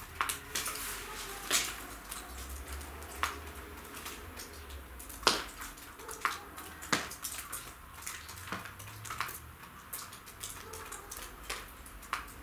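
Irregular light taps and clicks, with a few sharper knocks about a second and a half in, about five seconds in and about seven seconds in.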